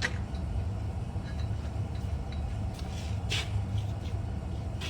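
Steady low hum with a few short scrapes of metal, one clear one about three seconds in, as a steel exhaust header is worked onto the engine's head studs.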